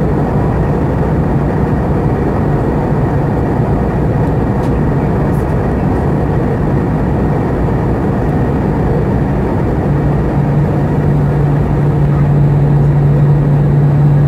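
Airbus A320 cabin noise at a window seat in flight: a steady rush of jet engines and airflow. A low engine drone grows louder and steadier about ten seconds in.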